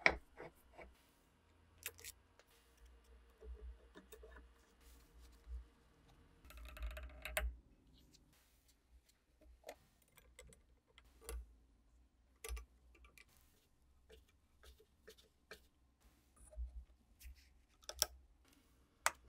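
Scattered light clicks and taps of small steel parts being handled and fitted while an antique pistol is reassembled, with a short scraping sound about seven seconds in and two sharper clicks near the end as the pistol is worked in the hand.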